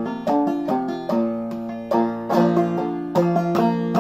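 Five-string banjo played clawhammer style in double C tuning (gCGCD), a steady run of plucked melody notes with struck brush strokes ringing between them.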